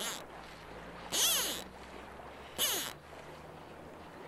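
Fly line swishing through the air as a fly rod is cast: three sharp swishes about a second and a half apart, over a faint background of running water.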